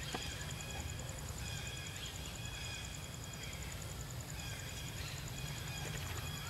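Outdoor ambience: a steady low rumble with faint high chirping calls that repeat every second or so, and a few soft clicks.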